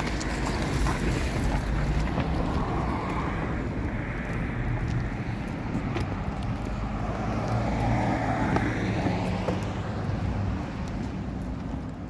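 A car engine running close by, a steady low hum, with wind rumbling on the microphone.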